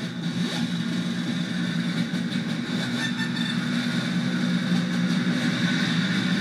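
DIY analog/digital modular synthesizer drum sequence run through an Electro-Harmonix Memory Man delay pedal. The separate hits blur into a dense, steady noisy wash with a low drone underneath while the pedal's knobs are turned.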